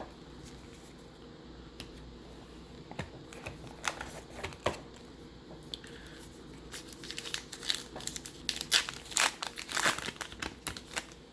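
Baseball card pack wrapper being torn open and crinkled by hand: scattered crackles at first, then a dense run of loud crinkling in the last few seconds.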